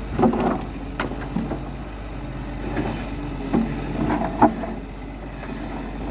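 Construction machinery engine running steadily, with several short knocks and clanks over it.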